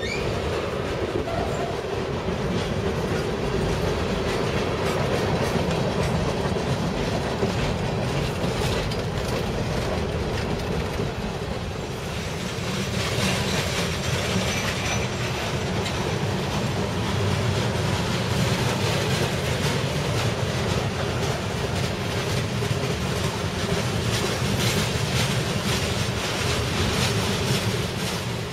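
A freight train's cars, tank cars and open-top hoppers, rolling past close by, their steel wheels clicking rapidly over the rail joints in a continuous clatter.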